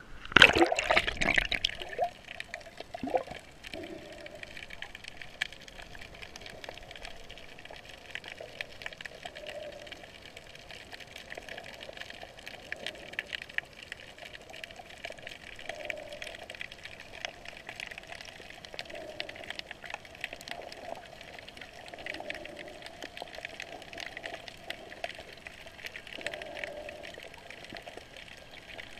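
Seawater splashing as the camera breaks the surface and goes under, then the muffled underwater sound of snorkeling: a steady hiss with many faint crackles and soft swells every few seconds.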